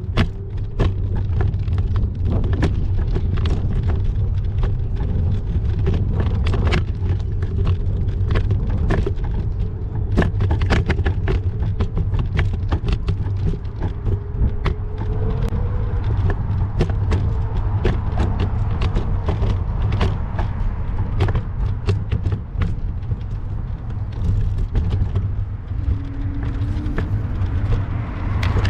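Steady low rumble of wind buffeting the microphone during a bicycle ride on city streets, with frequent sharp clicks and rattles and a wavering hum of passing traffic.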